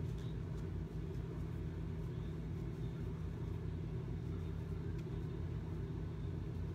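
Steady low background hum of the room, with a few faint soft clicks.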